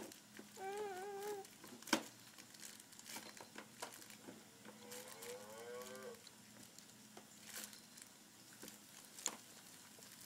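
Baby making two drawn-out coos: a wavering one early and a longer one near the middle that rises in pitch. Between them come light plastic clicks and knocks from the activity-center toys, the sharpest knock about two seconds in.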